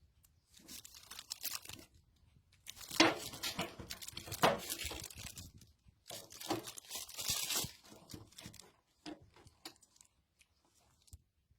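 Crinkling, crackly handling noise in three spells over about eight seconds, then a few scattered clicks.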